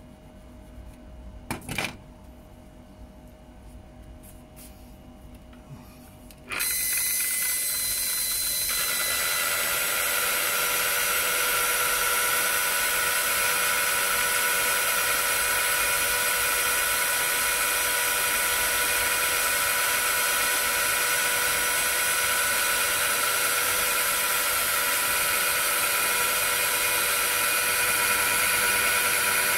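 A Makita 9237C electric rotary polisher switches on about six and a half seconds in and runs steadily, a motor whine with several steady tones. A short knock sounds near two seconds in, before it starts.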